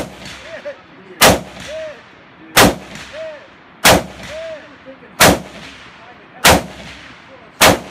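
FAL-pattern 7.62×51 mm rifle fired in single shots at a steady pace, six loud cracks about 1.3 seconds apart, each trailing off in a brief echo.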